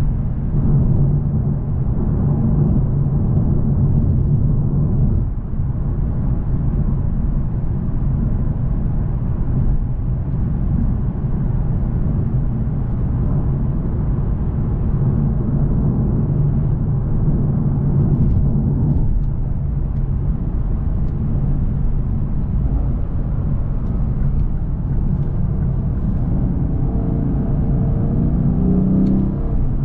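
Lexus RC F Track Edition's 5.0-litre V8 running at a steady cruise with tyre and road rumble, heard from inside the cabin. Near the end the engine pitch rises and falls briefly.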